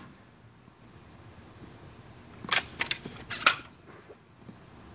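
Quiet outdoor background with a quick run of four small sharp clicks a little past halfway.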